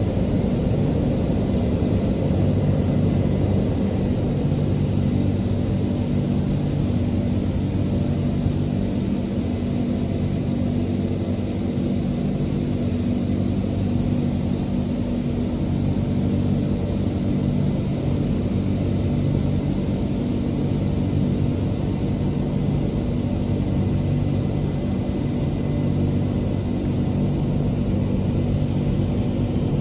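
Automatic rollover car wash running around the car, heard from inside the cabin: a steady low mechanical rumble and hum under a hiss of water on the bodywork.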